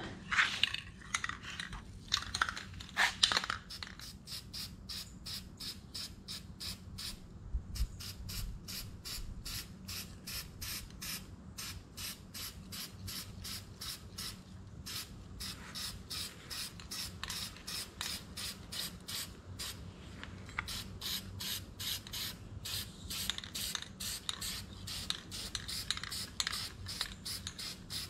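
Aerosol can of Rust Reformer primer spraying, its hiss coming in quick pulses about four times a second.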